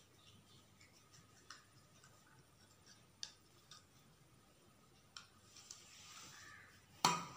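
Faint, scattered small plastic clicks as a small plastic slime tub is twisted and pried open by hand, with a louder sharp click near the end.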